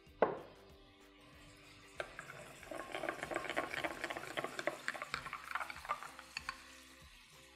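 A sharp knock just after the start, then a spoon stirring a thick mayonnaise sauce in a ceramic bowl: quick scraping clicks of the spoon against the bowl for a few seconds.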